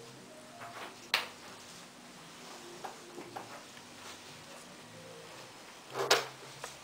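Two knocks of objects set down on a wooden cutting board: a sharp one about a second in and a louder one near the end, with faint handling sounds between.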